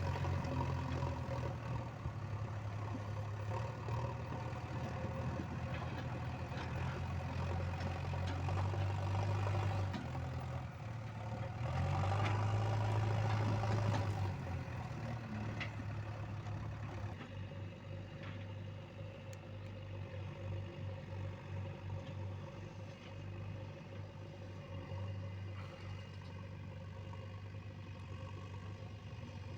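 Diesel engine of a JCB 3DX backhoe loader running steadily while it works. It rises and gets louder around twelve seconds in, then drops back to a quieter, lower running from about seventeen seconds.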